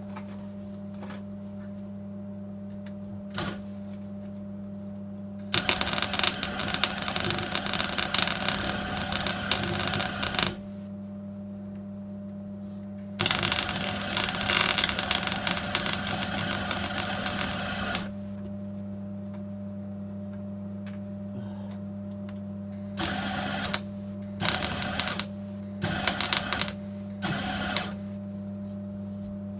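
MIG welder plug-welding sheet steel on a classic Mini's heel board, crackling in two long runs of about five seconds each, then in several short bursts near the end as the plug welds are spiralled in and filled. A steady low hum sits underneath.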